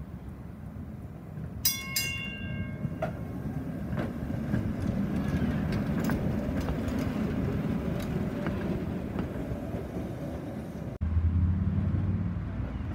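San Francisco PCC streetcar No. 1014 running past on its rails: a rumble with scattered clicks from the wheels on the track, growing as it comes alongside, and a single bell ring about two seconds in. Near the end a louder, steady low hum comes from the approaching tram.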